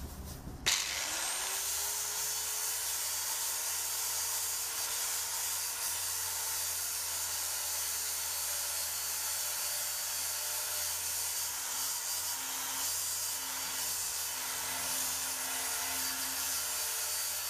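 Electric angle grinder switched on about a second in, spinning up with a rising whine to a steady pitch, then running at speed while its disc works over a wooden pickaxe handle held in a vise.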